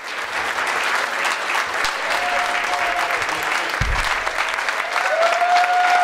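Audience applauding steadily, with a brief low thump a little before the four-second mark and a few held tones coming in over the clapping in the second half.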